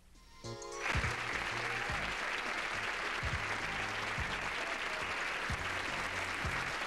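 Studio audience applauding steadily, starting about a second in after a moment of near silence, with music playing under it.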